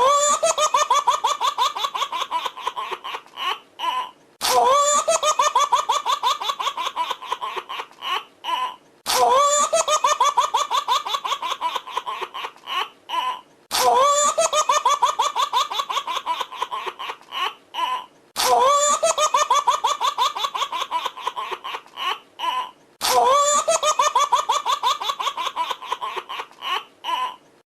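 A baby laughing: a fast run of high-pitched giggling peals that trails off into a few short breathy bursts. The same laugh repeats six times, about every four and a half seconds.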